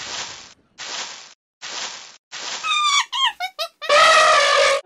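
Cartoon transition sound effects: four short swishes like footsteps, then a quick run of falling, squeaky chirps and one held high call, the loudest part, near the end.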